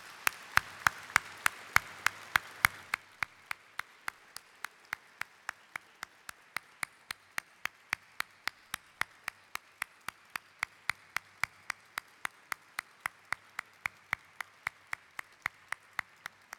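Audience applauding, with one person's sharp, evenly paced hand claps, about three to four a second, picked up close by the podium microphone. The crowd's applause dies down after about three seconds, while the single close clapping keeps on.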